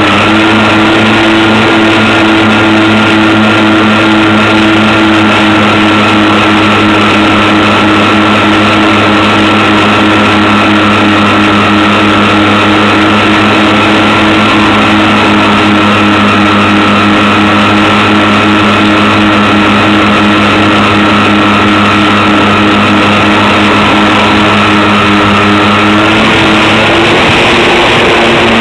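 Electric motors and propellers of a home-made twin-engine RC plane running steadily, a loud hum with a high whine on top; the pitch wavers and rises slightly about 26 seconds in.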